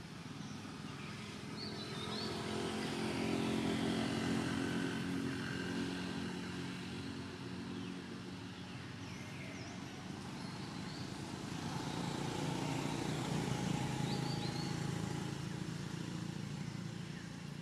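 Motor vehicle engines humming, growing louder and fading away twice as if passing, with a few faint bird chirps.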